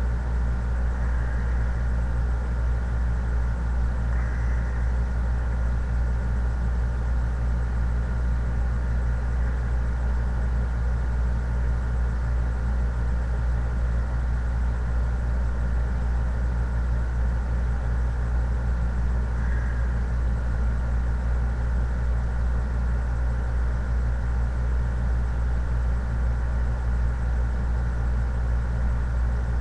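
Steady low hum with a faint high whine above it, unchanging throughout, with a few faint brief sounds over it.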